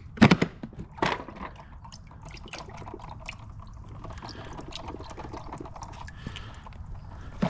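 Water being poured out of a wet/dry vacuum's canister, a steady splashing pour with small drips, after two knocks in the first second. The water was sucked out of a clogged AC condensate drain line.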